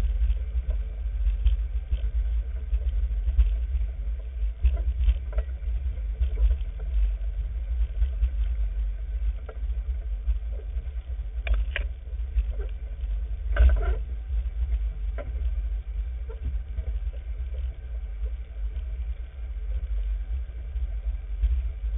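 Off-road vehicle driving over a rough, muddy trail: a continuous low rumble with scattered bumps and knocks, two of them louder about halfway through.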